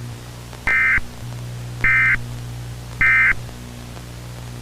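Emergency Alert System end-of-message data tones: three short identical bursts of digital SAME data about a second apart, over a steady low hum. They mark the end of the alert broadcast.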